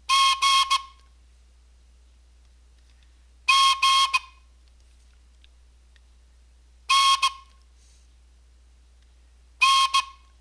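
A whistle sounding Morse code: four groups of two or three short blasts at one steady pitch, the groups about three seconds apart.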